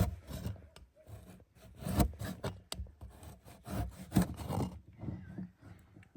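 A kitchen knife sawing through very dry, tough cured sausage on a wooden cutting board: irregular rubbing, scraping strokes with a few sharper knocks of the blade on the board.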